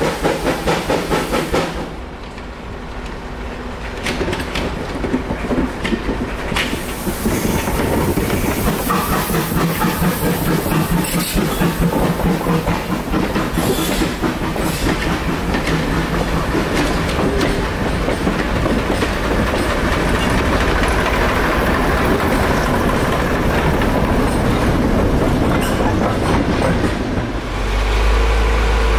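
Steam tank locomotive working past with rapid, regular exhaust beats for the first couple of seconds, then its train of coaches rolling by, wheels clicking and clattering over the rail joints. Near the end a low steady rumble sets in.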